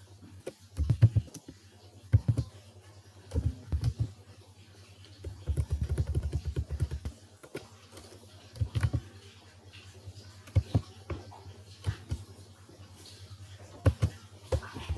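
Computer keyboard being typed on in short, irregular bursts of keystrokes, with a longer run of rapid keystrokes about five to seven seconds in.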